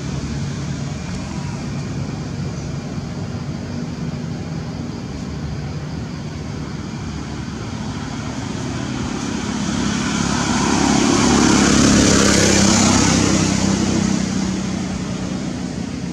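Steady low engine hum of motor traffic, with a vehicle passing by that grows louder to a peak about three-quarters of the way through and then fades.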